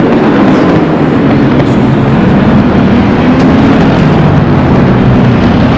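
Loud, steady motor-like running noise with a strong rushing hiss and a low hum that drifts slightly in pitch.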